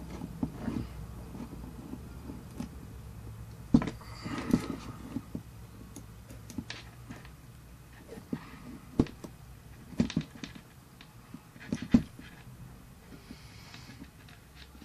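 Scattered small clicks and knocks of hands handling wires and tools on a soldering jig, over a low steady hum.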